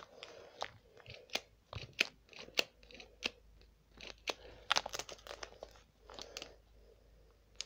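Handling noise close to the microphone: irregular sharp clicks, taps and rustling, with no speech.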